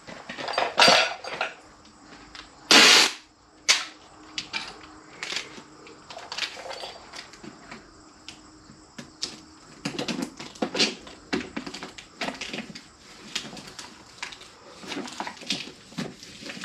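Parts and tools being handled: irregular clicks, taps and knocks, with two louder noisy bursts about one second and three seconds in.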